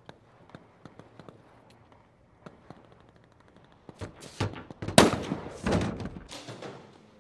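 Gunfire in a street battle: faint scattered clicks, then a burst of several shots starting about four seconds in, the loudest about a second later, ringing out briefly.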